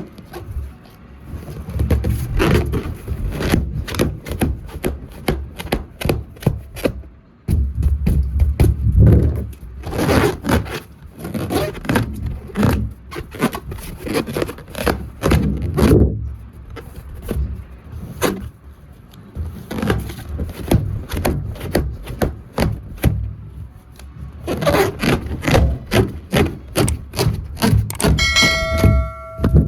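Rubber balloons being rubbed and squeezed: a long run of scraping, rubbing squeaks and dull thuds. A short steady pitched squeal comes near the end.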